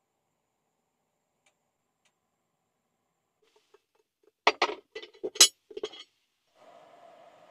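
A quick run of sharp metallic clinks and knocks, about half a dozen with a short ring, as a small black pot with a metal bail handle is handled and its wooden lid lifted off on an induction hob. A faint steady hiss starts near the end.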